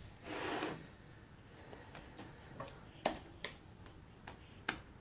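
Plastic spatula scooping whipped topping and knocking against a glass mixing bowl. A brief soft rush of noise comes about half a second in, then a few sharp light clicks over the last two seconds.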